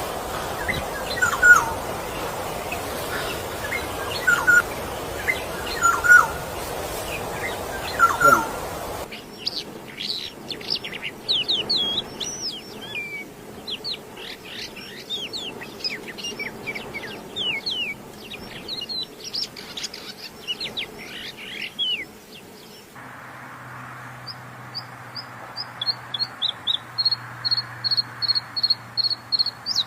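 Caged songbirds singing in three recordings cut one after another. First comes a short call repeated every couple of seconds over a steady background hiss. About nine seconds in, a bird sings a rapid string of varied high chirps and trills. About twenty-three seconds in, a different bird starts a fast run of high repeated notes over a low hum.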